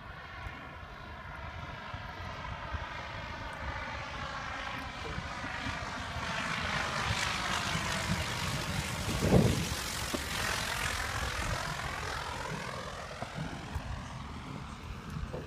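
Single-engine propeller floatplane flying low overhead: the engine drone grows louder, peaks around the middle with a short low thump, then drops in pitch and fades as the plane moves away.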